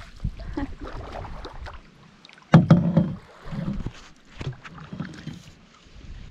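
Canoe paddling: the paddle blade dipping and splashing in the water, with water dripping and scattered light knocks, and one louder knock and splash about two and a half seconds in.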